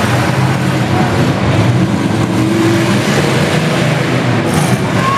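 Engines of several demolition derby cars running together at once, a loud, steady, dense rumble.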